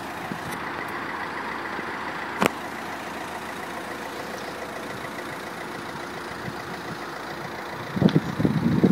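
Steady hum of a car engine idling, with a single sharp click about two and a half seconds in and loud irregular knocks and bumps near the end.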